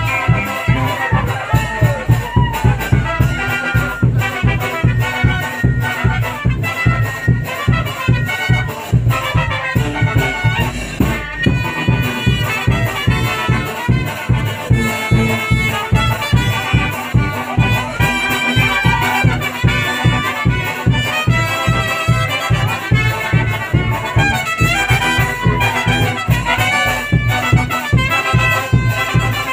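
Brass band music: trumpets and other brass carry the melody over a steady, pulsing bass beat.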